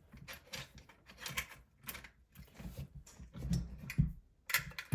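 Irregular small clicks and knocks of hands handling the frame of an electric spinning wheel while getting at a rear fastener, with a louder knock about four seconds in.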